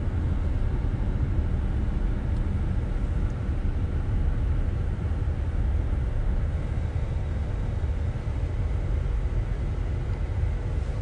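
Steady low rumble and hiss of a moving car, heard through a phone's microphone from inside the cabin.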